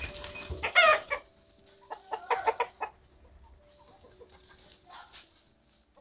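Free-range chickens, hens and a rooster, clucking and squawking as they come out of their opened coop. There is a loud squawk about a second in and a quick run of clucks around two to three seconds in.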